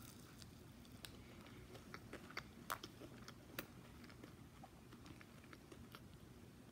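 A person chewing a fried, breaded snack, with scattered soft mouth clicks.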